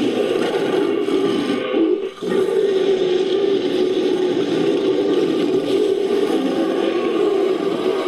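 Creature sound effect of a bear-like monster: a long, rough, steady growl, broken once by a brief pause about two seconds in.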